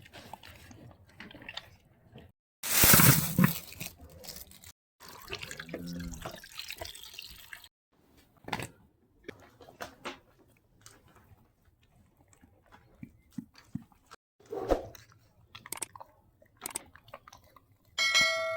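Calves biting into and chewing fresh tomatoes: irregular wet squelching and crunching, with a few louder noisy bursts, the loudest about three seconds in. A brief pitched sound comes near the end.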